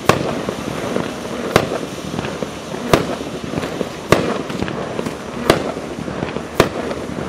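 Several colour smoke tube fireworks burning together with a steady rushing hiss, broken by a sharp pop about every second and a half.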